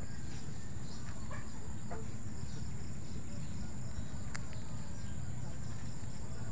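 Outdoor ambience: a steady high-pitched insect drone over a low steady rumble, with a few faint bird calls and a small click about four and a half seconds in.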